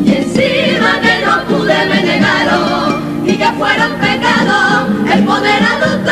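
A mixed carnival comparsa choir of women and men sings a pasodoble in parts, with two guitars accompanying. The women's voices are on top and young men's voices reinforce the second part.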